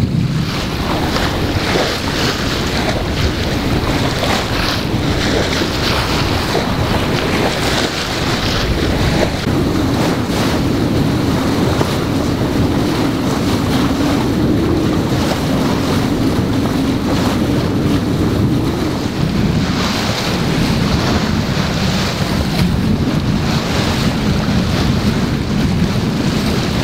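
Wind buffeting the microphone over the steady rush and splash of water along the hull of a Bavaria 31 sailboat under sail in a fresh breeze.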